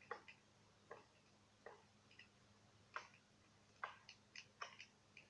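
Bonfire wood crackling, with sharp pops at irregular intervals: sometimes a second or more apart, and in a quick cluster after about four seconds.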